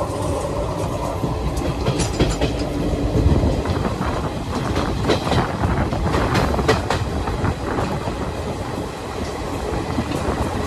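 Passenger express train running, its wheels clattering in irregular clicks over rail joints beneath a steady rumble, heard from the open coach doorway.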